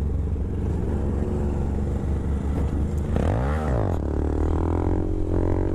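Honda Grom's 125 cc single-cylinder engine running in second gear. About three seconds in it revs up and drops straight back as the clutch is let out, then pulls steadily at a higher pitch: a second-gear clutch-up to lift the front wheel.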